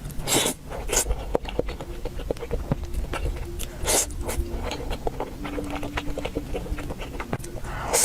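Close-miked eating: chewing with many small wet clicks and a few louder, hissier bursts about half a second in, at one second and about four seconds in.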